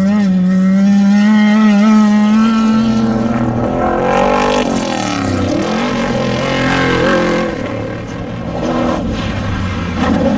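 Off-road desert race vehicle's engine running hard at high revs, its pitch steady at first, then dipping and climbing back about halfway through, with another brief dip near the end.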